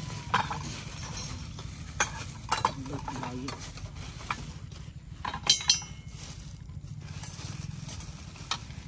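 A utensil stirring in a cooking pot, with scattered clinks and knocks against the pot.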